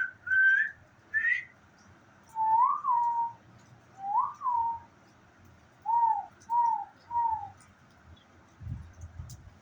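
A series of clear whistled notes: a few short rising notes, then lower notes that swoop up and down, and three short falling notes near the end.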